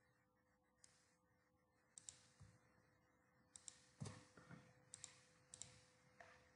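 Faint computer mouse clicks, mostly in quick pairs of press and release, about six times over a few seconds, the one about four seconds in the loudest, over a faint steady electrical hum.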